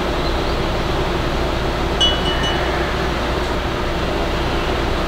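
Steady rushing room noise with a low hum, and one short, high-pitched clink about two seconds in.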